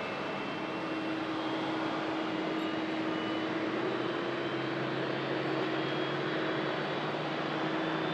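Boeing 767-300ER jet engines running as the airliner rolls out on the runway after touchdown: a steady rush of jet noise with a held tone through it, a lower tone joining about halfway.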